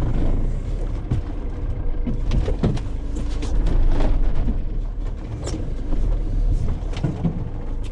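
Vehicle engine running with a steady low rumble, with scattered knocks and clicks through it.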